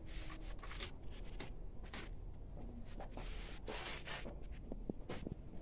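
Short bursts of soft rustling and scraping as hands handle incense sticks while lighting them.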